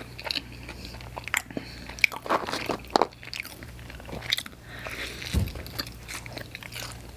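Close-miked chewing and biting of pizza topped with crunchy hot Cheetos: irregular crunches and mouth sounds.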